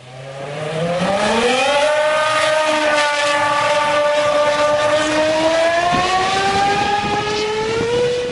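2009 Toyota Formula 1 car's 2.4-litre V8 engine running at high revs, its pitch climbing steeply over the first second or two, holding steady, then rising slowly again before dropping right at the end.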